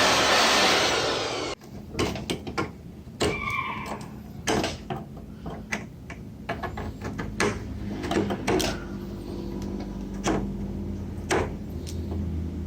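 Electric power duster blowing a loud, steady rush of air, switched off abruptly about a second and a half in. After it comes a run of sharp clicks and knocks of hardware being handled, over a faint low hum.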